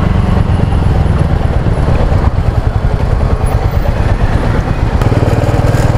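Motorcycle engine running while being ridden: a steady low engine note under a constant rush of noise from the ride.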